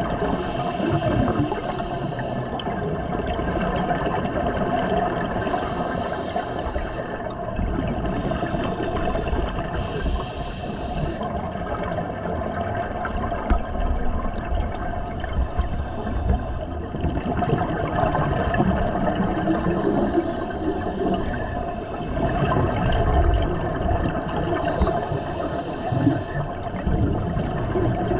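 Scuba regulator exhaust bubbles heard underwater through a dive camera's housing: a hissing rush of exhaled bubbles comes in bursts every few seconds, over a steady wash of water noise and a faint steady hum.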